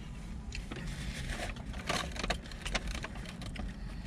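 Quiet eating sounds: scattered small clicks and rustles of a plastic fork and takeout container and a paper wrapper, with chewing, over a low steady hum.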